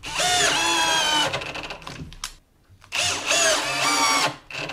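Cordless drill-driver driving screws into plywood in two runs of about a second and a half each. The motor's whine rises as it spins up, then holds steady while the screw goes in.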